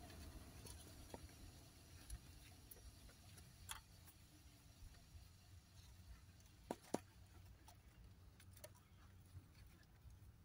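Near silence with a few faint clicks and taps as wires and multimeter test leads are handled at the cooling-fan relay connector; the loudest is a quick double click about seven seconds in.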